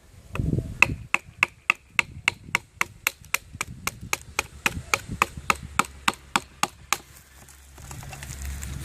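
Bushcraft knife splitting a wooden stick: a quick, even run of about twenty sharp knocks of blade on wood, three or four a second, stopping about seven seconds in. Handling noise follows.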